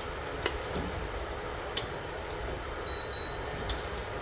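A metal spoon stirring chunks of pork in a stainless steel pot, knocking sharply against the pot three times, over a steady low hum. A short high double beep sounds near three seconds in.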